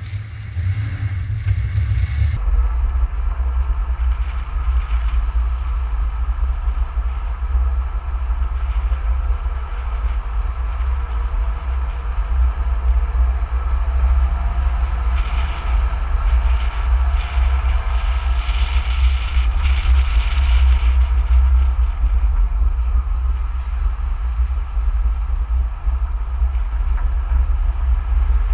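A moving vehicle carrying the camera: a steady, heavy low rumble with a hiss over it, the kind of noise wind and road make on the microphone. The sound changes abruptly about two seconds in.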